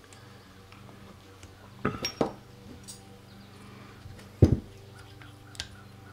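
Small metal carburetor parts from a Yamaha Banshee clinking and knocking as a throttle slide, spring and cap are handled and fitted into the carburetor body. There are a few light clinks about two seconds in and a single louder knock about four and a half seconds in, over a faint steady hum.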